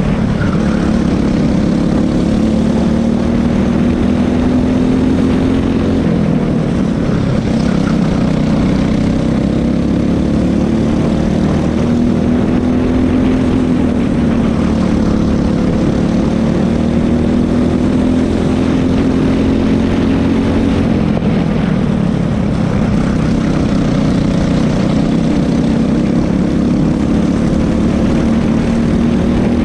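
Cadet racing kart's engine at high revs, heard onboard: a loud steady drone whose pitch dips twice, about six and twenty-one seconds in, and climbs back up each time.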